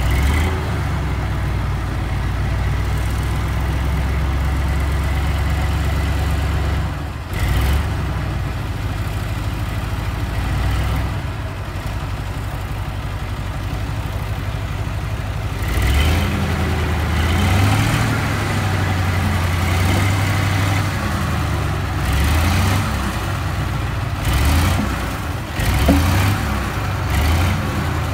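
Heavy diesel dump truck engine running at a steady idle, then from about halfway through revving up and down again and again.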